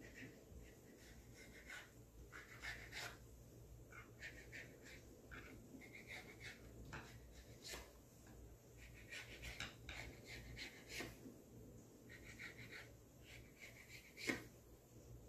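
Faint scraping of a kitchen knife drawn through thin rolled-out dough against a wooden cutting board, in short repeated strokes, with a few light taps of the blade on the board; the sharpest tap comes near the end.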